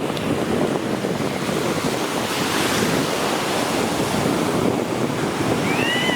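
Ocean surf breaking on the beach, with wind buffeting the microphone. A short high chirp, rising then falling, comes near the end.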